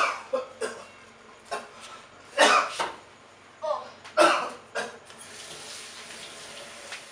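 A man coughing hard in a string of harsh, irregular bursts, then from about five seconds in a steady hiss.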